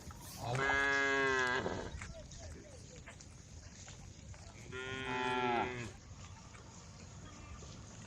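Cows mooing: two drawn-out moos, each about a second long and dropping slightly in pitch, the second softer than the first.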